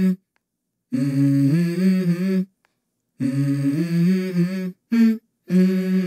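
Wordless humming of a simple melody in a song, stepping between a few notes in short phrases separated by brief silences.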